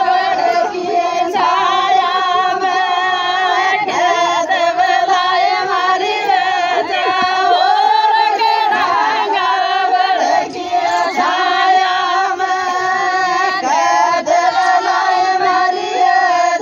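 A group of women singing a Rajasthani Meena folk song together, with long held lines that waver up and down in pitch.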